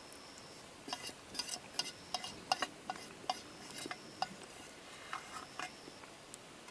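A metal utensil clinking and scraping against metal cookware, a string of light, irregular clinks lasting about five seconds, starting about a second in.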